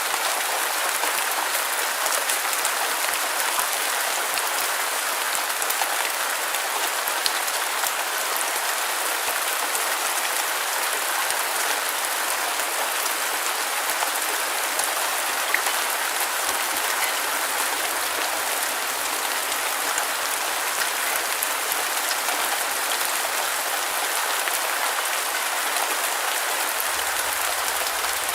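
Steady, dense rain: a continuous hiss of drops with faint scattered individual splats, even in level throughout.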